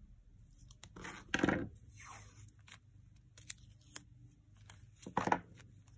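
Washi tape being peeled off its roll and torn by hand: two short ripping sounds, one about a second in and one about five seconds in, with light taps and clicks of fingers on the roll between.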